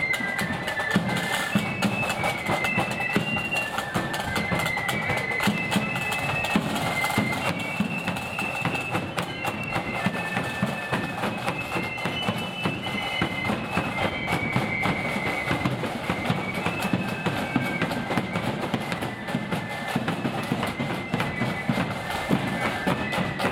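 A blood-and-thunder marching flute band playing a tune: a high melody on many flutes in unison over a bass drum and snare drums beating time.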